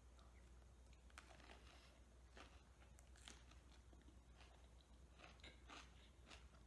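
Faint close-up chewing of a fresh summer roll, rice paper with raw vegetables, with small soft crunches scattered throughout, over a low steady hum.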